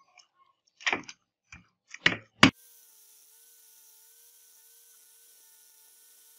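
A few sharp knocks and clicks from handling an angle grinder fitted with a sanding disc, the last and loudest about two and a half seconds in. Then a faint, steady hum with a light hiss.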